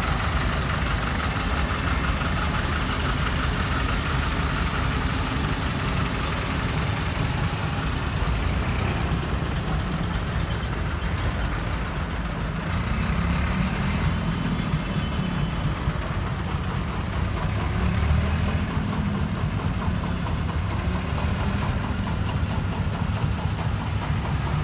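Engines of small vintage tractors running as a line of them drives slowly past, a steady low engine sound that swells a little as one comes closer about three-quarters of the way through.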